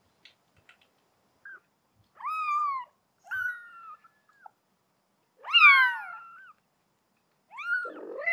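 Two-week-old kittens mewing: a run of short, high-pitched mews, each rising and falling. The loudest comes a little past the middle, where two kittens call at once.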